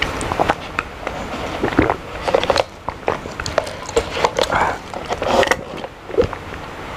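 Close-miked sipping through a drinking straw from a plastic cup, with the straw stirred in the cup partway through: brief slurps amid a run of small clicks and rattles.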